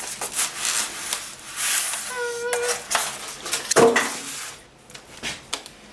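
A computer monitor and its tight packaging being handled: rustling, clicking and knocking of plastic and packing material, with a short squeak about two seconds in and a sharp knock about four seconds in.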